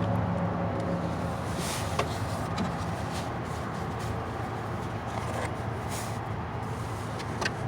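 A motor vehicle's engine running steadily, with a few light sharp clicks over it, twice more clearly: about two seconds in and near the end.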